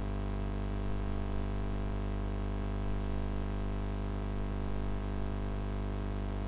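Steady electrical mains hum, a low buzz with many overtones, cutting off suddenly at the end.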